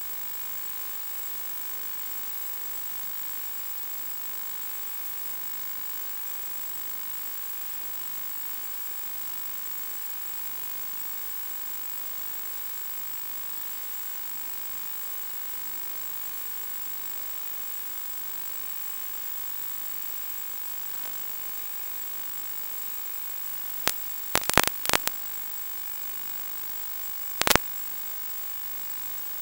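Steady electronic hiss and hum with a thin, constant high whine, the noise of the recorded video link's audio line. Near the end a quick cluster of sharp clicks cuts through, then one more click a few seconds later.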